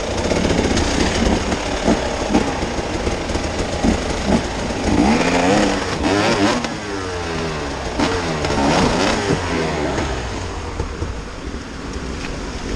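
Off-road vehicle engine revving up and down repeatedly as it works over a rough track, with scattered knocks and a steady low rumble.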